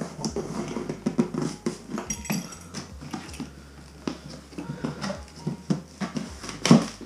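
Large corrugated cardboard box being opened by hand: flaps pushed and folded back, with scraping, rustling and a steady run of small knocks, and one louder thump near the end.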